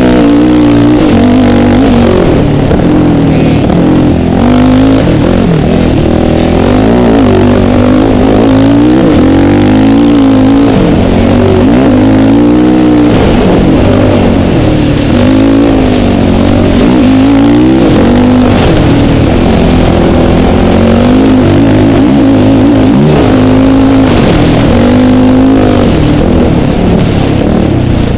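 Dirt bike engine heard close up from the bike itself, very loud, its revs rising and falling over and over as it is ridden hard, with wind rush over it.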